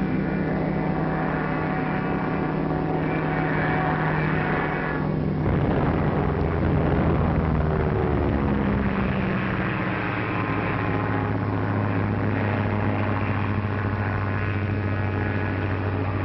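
Propeller aircraft engine drone on an old film soundtrack, steady at first, then swelling about five seconds in with its pitch sliding as the plane dives.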